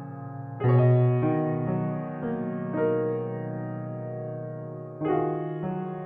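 Slow background piano music: chords struck a few seconds apart, each left ringing and fading, with a new chord about half a second in and another near the end.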